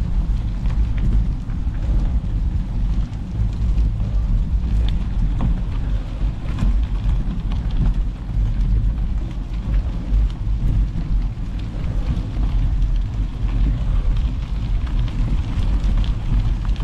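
Wind rumbling on a GoPro action camera's microphone while a gravel bike rolls fast over a loose gravel track, with the crunch of the tyres and scattered clicks of stones and rattles.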